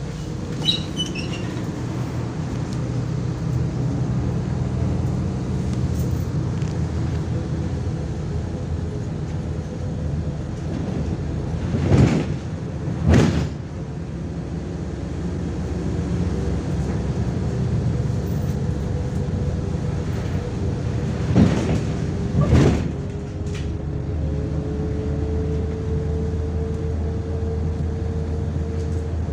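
MAZ-105 city bus heard from inside while under way: a steady engine drone and road rumble, with a hum that rises slightly in pitch near the end. Four brief, loud whooshes break in, in two pairs about ten seconds apart.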